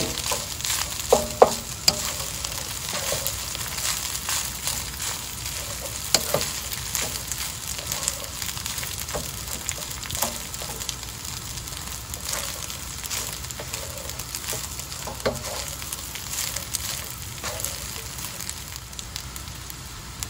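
Turmeric rice sizzling as it is stir-fried in a nonstick pan, with a wooden spatula scraping and knocking against the pan at irregular moments. The loudest knocks come about one to one and a half seconds in.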